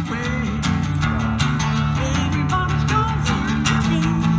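Acoustic guitar strummed with a bass line underneath, the instrumental intro of a song.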